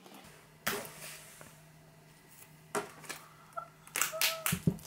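Hands handling a sealed iPad box: a knock as the cardboard box is handled, then a cluster of small clicks and crinkles as fingers pick at the box's plastic seal tab, with a couple of soft thuds near the end, over a faint steady hum.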